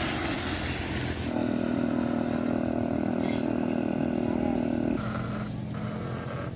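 A loud hiss for about the first second, then a small engine running at a steady pitch for about four seconds, dropping to a lower, quieter hum near the end.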